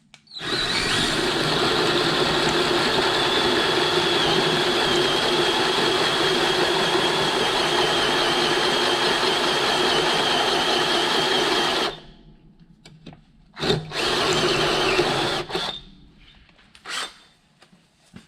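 Power drill driving a hole saw through the work. It runs steadily with a high whine for about twelve seconds and stops. After a short knock it runs again for about two seconds, and there is a brief burst near the end.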